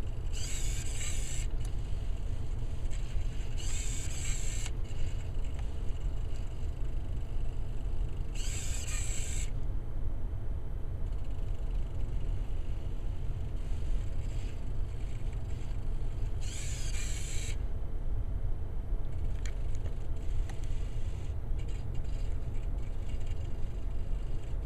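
Small robot's hobby servos whirring in four short bursts of about a second each, with pauses between, as it drives across the whiteboard in stop-start moves. A steady low rumble sits underneath throughout.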